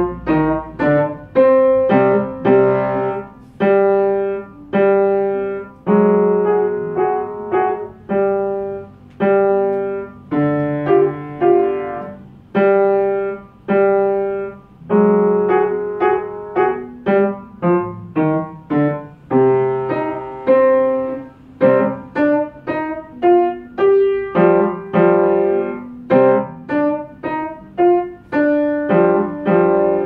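Upright piano playing a slow piece of separate struck notes and chords, each attacked and left to ring and fade, with a short repeated figure in the middle register.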